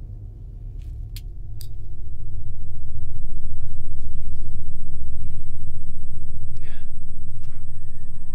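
A deep, loud rumble swells up over about a second and a half and then holds steady. A couple of sharp clicks come just before it swells, and another near the end.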